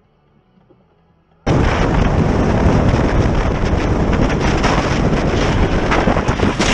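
Near quiet for about a second and a half, then a sudden loud wind roar buffeting a motorcycle-mounted camera's microphone at freeway speed, crackling throughout.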